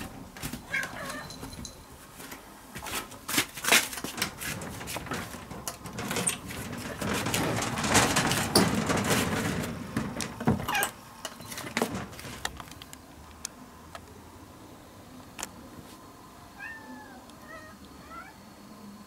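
A domestic cat meowing amid close knocks and rustling. The knocks and rustling are loudest over the first two-thirds, and a few short high chirps come near the end.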